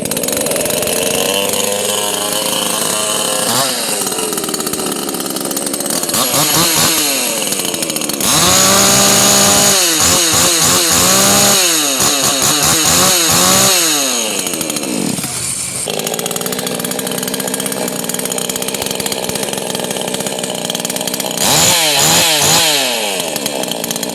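Hyundai two-stroke chainsaw with a 24-inch bar running, its engine revved up and down again and again. The revving is loudest and fastest in the middle and again near the end, with a steadier stretch between.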